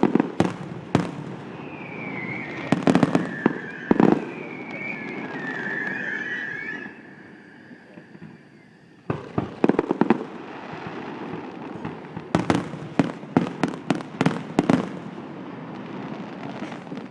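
Fireworks display: aerial shells bursting with sharp bangs in clusters, a few near the start, then rapid volleys about nine seconds in and again between twelve and fifteen seconds. From about two seconds in, a wavering high whistle lasts for about five seconds.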